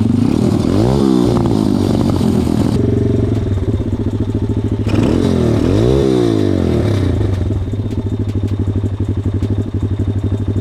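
A 140cc pit bike's single-cylinder engine running, revved up and back down twice, about a second in and again about six seconds in, on a bike that keeps stalling.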